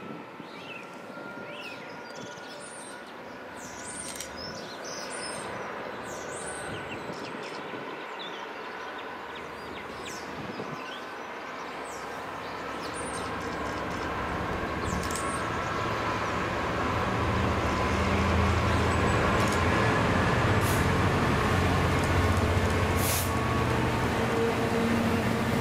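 Colas Rail Class 66 diesel-electric locomotive, with its two-stroke V12 diesel engine, approaching with a freight train. It grows steadily louder and is loudest over the last several seconds as it reaches the crossing. Birds chirp during the first half.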